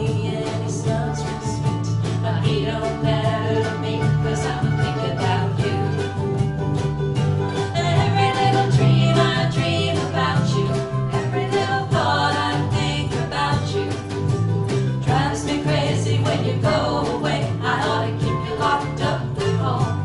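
Live country-folk band playing a song: strummed acoustic and electric guitars, electric bass and mandolin keeping a steady beat, with vocals over the top.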